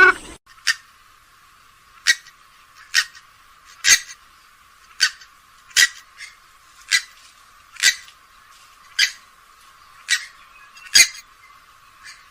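Grey-headed swamphen giving short, sharp calls, about one a second, a dozen in all. The recording sounds thin, with its low end cut away.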